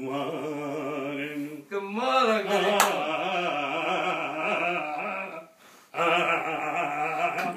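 A man's voice singing in long, wavering held phrases, breaking briefly about a second and a half in and again near the end.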